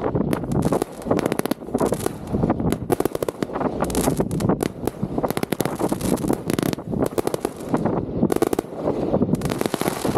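Fireworks display heard from within the firing site: a dense, unbroken barrage of bangs and crackling.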